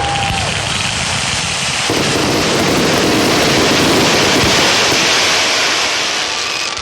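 Fireworks finale barrage: many shells bursting in quick succession, merging into one continuous loud rumble that gets heavier about two seconds in and eases near the end.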